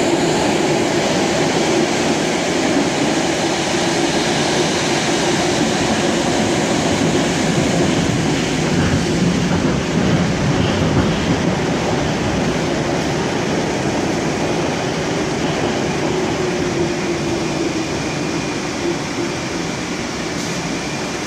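Running noise inside a Moscow Metro 81-765 "Moskva" train car: a steady rumble of wheels on rails and running gear. It eases off over the last few seconds as the train slows into the station, and a faint high whine appears near the end.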